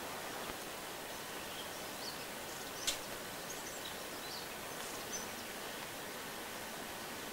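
Steady hiss of forest ambience with a few faint, short, high bird chirps scattered through it, and a single sharp click about three seconds in.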